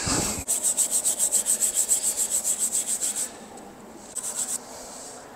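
Hand wire brush scrubbing the threads of a bolt on a church bell's mounting, cleaning them so the thread end can be seen. It goes in quick back-and-forth strokes, about eight a second, for nearly three seconds, then a short second burst.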